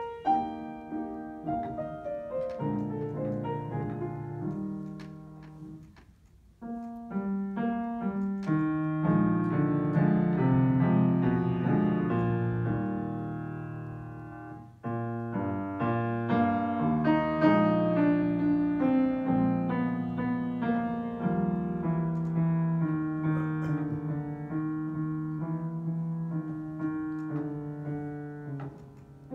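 Grand piano played solo: a flowing passage of many notes that dies away almost to silence about six seconds in, then starts again, with a sudden loud entry about halfway through.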